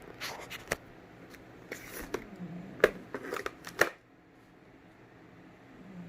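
Unpacking noises: packing material and parts being handled, in three short bouts of rustling and sharp clicks that stop about four seconds in.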